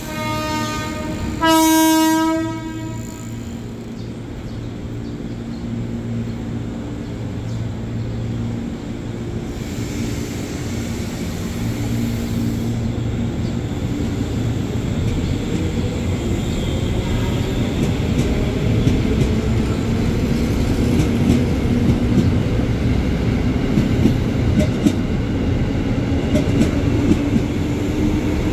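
JR 205 series electric commuter train sounding a single horn blast of about a second, then pulling away from the platform. Its motor hum and wheel and running noise grow steadily louder as it gathers speed.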